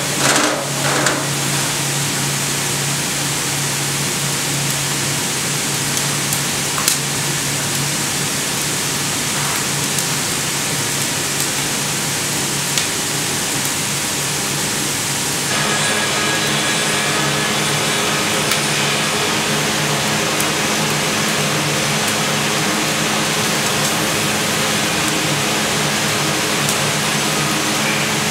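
Steady rushing roar of an open fire burning inside an oak barrel as it is charred, over a low steady hum. The sound changes abruptly a little past halfway, then holds steady again.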